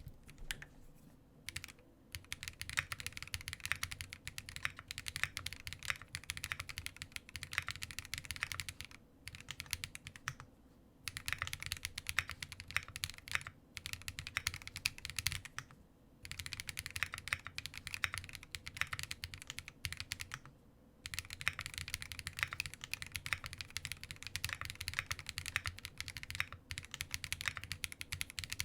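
Fast typing on a Link65 mechanical keyboard with lubed Green Jacket linear switches, PBT keycaps and a polycarbonate plate, no foam in the case: rapid keystroke clacks in runs of several seconds, broken by short pauses.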